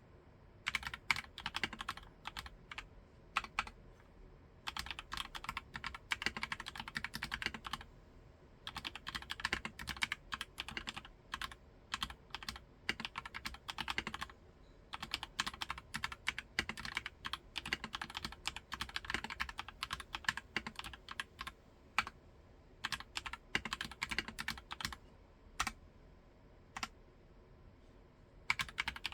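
ABKO K660M-L68 mechanical keyboard with Kailh Nuit switches being typed on. The key presses come in quick runs of several seconds, broken by short pauses and a few single isolated key presses.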